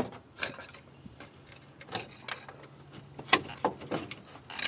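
Front brake caliper on a 2005 GMC Envoy being worked off the rotor by hand: scattered light metallic clicks and knocks of the loose caliper and pads, with a sharper clink about two thirds of the way in.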